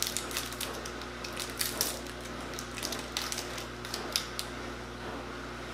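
Irregular small crackles and clicks of a plastic candy wrapper being handled and opened, over a steady low hum.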